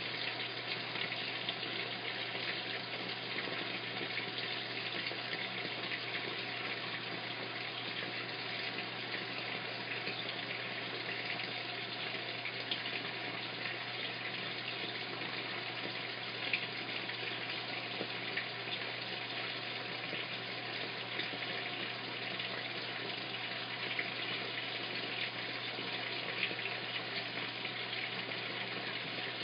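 Top-loading washing machine filling with water: a steady rush of water pouring into the tub, with a constant low hum under it.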